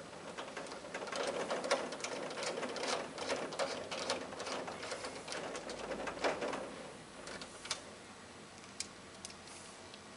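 Light metal clicking and rattling of a bolt and washer being fitted and turned into a slotted metal panel. The clicks come quickly and irregularly, then thin to a few isolated clicks in the last seconds.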